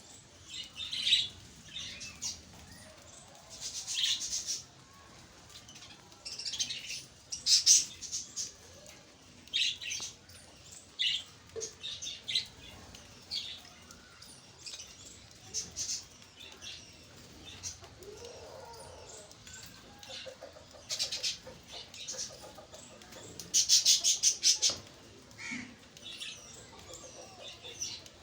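Flock of pet budgerigars chirping in short, irregular bursts of high chirps, louder clusters about a third of the way in and near the end.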